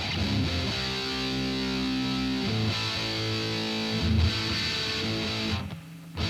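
Electric guitar played through a Fender Frontman 25R practice amp: strummed chords left to ring, changing a few times, with a short drop just before a fresh chord is struck near the end.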